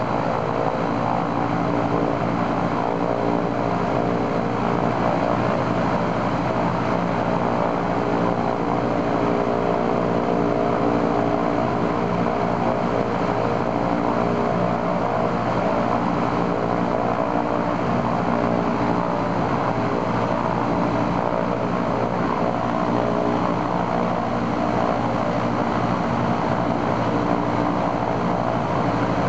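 Ilyushin Il-14's right-hand Shvetsov ASh-82T 14-cylinder radial engine and propeller running steadily on a ground run-up, a test run after the engine's oil cooler was replaced.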